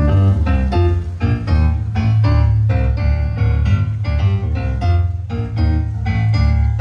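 Live Cuban dance band playing: rhythmic keyboard chords over a heavy bass line in a steady dance beat.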